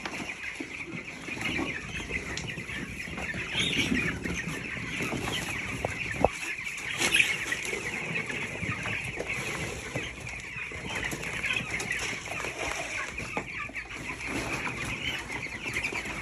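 A flock of 13-day-old broiler chicks cheeping continuously while they feed on grower pellets. Scattered small clicks run through it, with a sharper knock about six seconds in.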